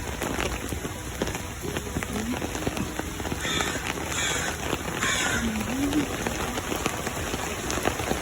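Heavy rain pattering on an umbrella overhead, with many small drop ticks throughout. Three short, louder hissing splashes come a little past the middle.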